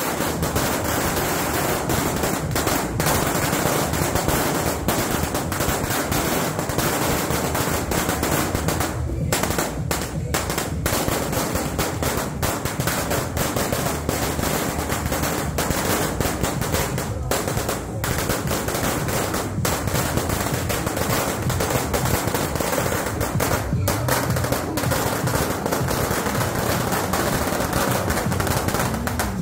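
A long string of firecrackers going off on the street in a dense, unbroken run of sharp cracks, with a few brief dips about a third of the way in.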